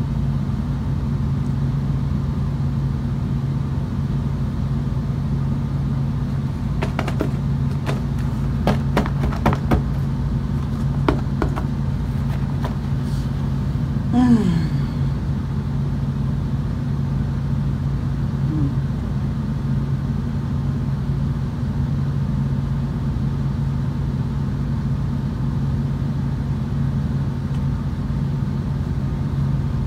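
A steady low hum runs throughout. About seven to eleven seconds in comes a run of sharp crunching clicks from cornstarch being chewed, and about fourteen seconds in a brief falling tone.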